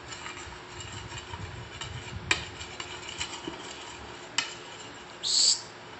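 A metal spoon stirring and scraping in a bowl of soup, with two sharp clinks against the bowl, about two and four seconds in. Near the end there is a short, louder hiss.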